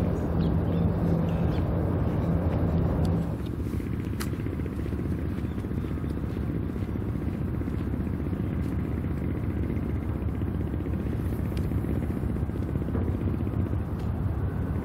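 A steady low engine drone over a low rumble, which cuts off suddenly about three seconds in. After that only a steady low outdoor rumble remains.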